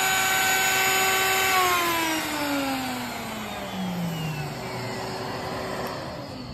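Router on a CNC Shark switched off and spinning down: its high whine slides steadily lower over about three seconds, over the steady rush of a shop vac, which is switched off near the end.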